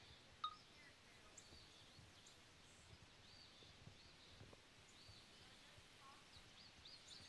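Near silence with repeated short, high bird chirps, and a single faint click about half a second in.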